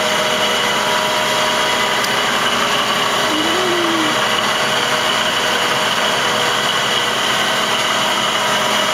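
Traub TNS-26-DGY CNC turning center running: a loud, steady machine noise with a few constant whining tones over a broad hiss, unchanging throughout.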